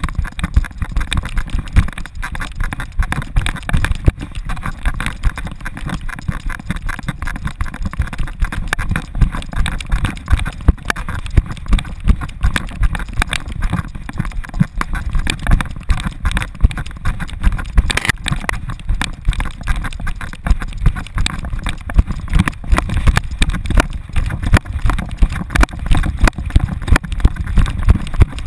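The jolting thumps of a running American Staffordshire Terrier's strides, picked up by a camera strapped to its back, in a fast regular beat over a low wind rumble.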